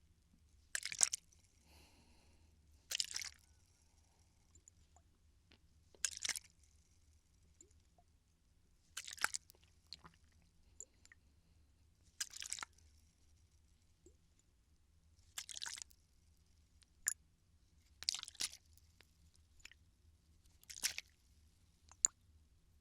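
Plastic water bottle squeezed and crinkled close to the microphone, eight short crackling crunches about every three seconds, with a couple of sharp clicks between them.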